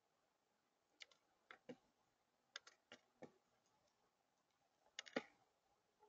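Faint scattered clicks and taps, about ten of them, the loudest pair about five seconds in: a juvenile northern cardinal pecking and hopping among seeds and peanuts on a tabletop.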